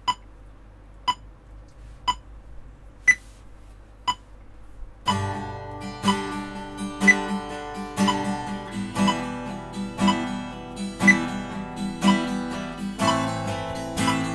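A metronome clicks about once a second. About five seconds in, an acoustic guitar starts strumming fast, even down-up strokes over the clicks: the beat subdivided into sixteenth notes. The chord changes near the end.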